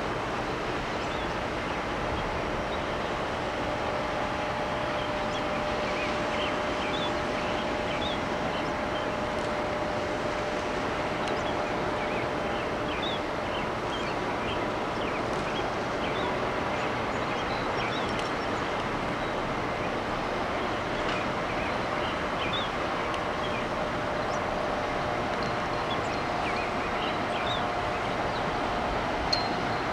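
A train rolling past steadily, its wheels and cars making a continuous rumble with faint held tones, and scattered short high chirps above it.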